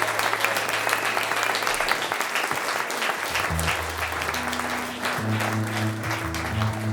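Audience applauding at the end of a live song, with low held instrument notes coming in about halfway through.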